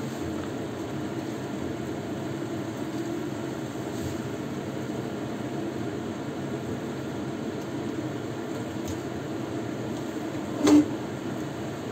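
Stew cooking in a pan on a gas stove: a steady low hum runs throughout, and about ten and a half seconds in a metal spatula knocks once, loudly, against the pan with a short ring.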